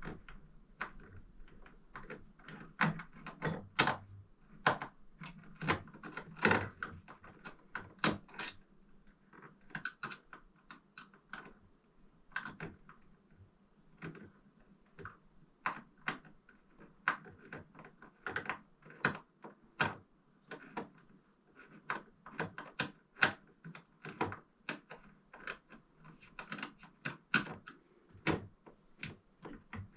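Irregular clicks, taps and light knocks of hand-tool work, a manual screwdriver turning screws in a curtain rod bracket.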